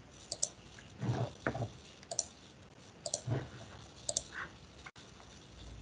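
Quiet computer mouse clicks, about four double clicks roughly a second apart, made while opening and working an on-screen dashboard.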